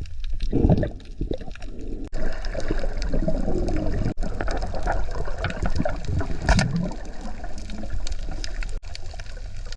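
Water sloshing and gurgling, a continuous noisy wash that drops out abruptly for an instant a few times.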